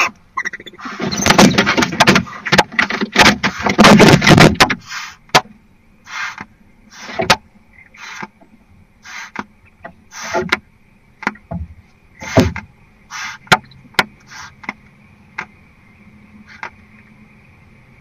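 Barn owls in a nest box: a few seconds of loud scuffling and hissing with sharp clicks, then short hissing calls and clicks about once a second, stopping near the end.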